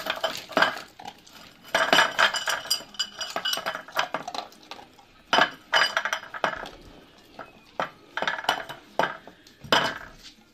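Metal muffin tin clanking and shifting on a wooden floor as a dog noses balls and toys out of its cups to get at the kibble beneath. Irregular clanks and knocks, some louder than others.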